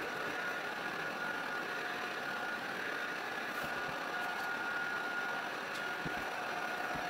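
A steady mechanical whir with a constant faint high whine, and a few faint taps in the second half.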